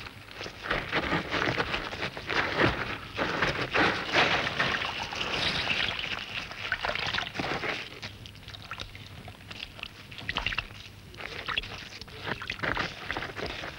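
Irregular wet squelching and sloshing of mud and water as a dung beetle shoves its dung ball through a muddy puddle. It is busiest in the first half, thins out in the middle and picks up again near the end.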